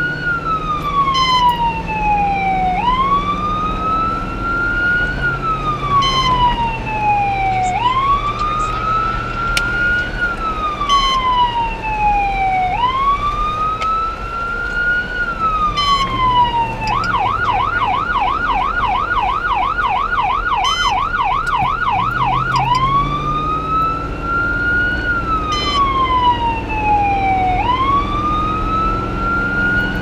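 Emergency vehicle siren sounding a slow wail, each cycle rising and falling over about five seconds. About seventeen seconds in it switches to a fast yelp for about six seconds, then goes back to the wail. Vehicle engine and road noise run underneath.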